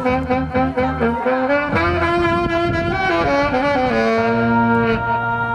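Tenor saxophone playing a melody, a run of quick notes and then longer held ones, over a backing track with sustained bass notes from a portable speaker.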